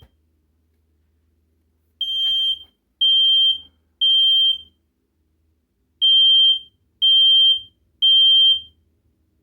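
Smoke alarm sounding its test: loud, high-pitched beeps in the three-beep evacuation pattern, three beeps a second apart, a pause, then three more.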